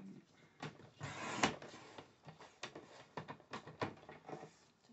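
Paper trimmer cutting card: a rasping slide of the blade through the card about a second in, among scattered clicks and taps of the trimmer and card being handled.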